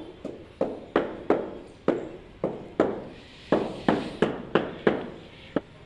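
A series of about a dozen sharp knocks, irregularly spaced a third to half a second apart, each with a short ringing tail.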